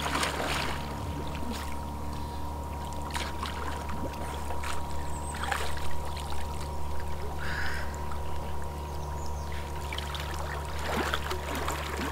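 Water splashing and sloshing in short irregular strokes from people swimming, over a steady low hum that cuts off suddenly just after the end.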